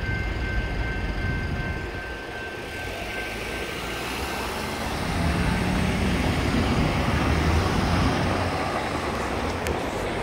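Railroad crossing's electronic bell ringing as the gate arms rise, fading out a few seconds in. Road traffic resumes: a car drives across the crossing with a low rumble, loudest in the middle.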